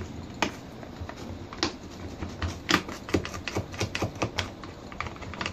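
Irregular light clicks and short scrapes of a tool scraping dirt out of the plastic chain-tensioner housing in a Stihl MS 210 C chainsaw's side cover.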